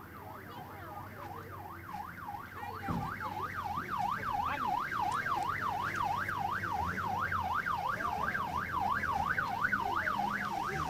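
Gendarmerie convoy siren sounding in a fast rising-and-falling yelp, about three sweeps a second, growing louder about three seconds in, over a low engine rumble.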